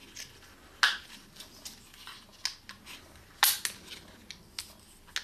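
Short arrows being slid one after another into a small glued-plywood stripper-clip box, their vanes clicking and knocking against the wood. Two knocks, about a second in and past three seconds in, stand out above the lighter clicks.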